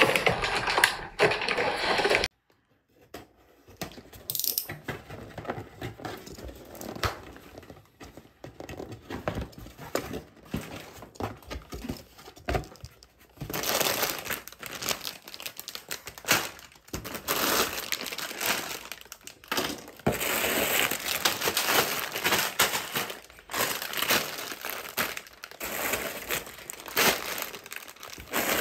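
Clear plastic bags of LEGO Technic parts crinkling and rustling as they are handled and piled up, with irregular small clicks. It gets louder and busier about halfway through.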